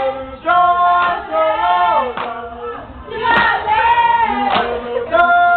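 A youth group singing together in several-part harmony, in phrases of a second or two with short breaks between them.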